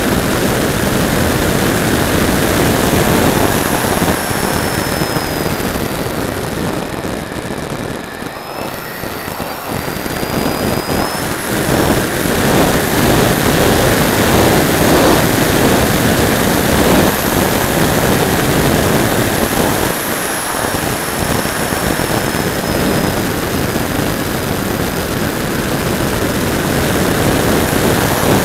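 Rushing airflow and the high whine of a Radjet model jet's 3800kv brushless motor driving a 5x5 propeller, picked up by a keyfob camera mounted on the plane. A thin whine slides up and down in pitch, and the level dips briefly about eight seconds in.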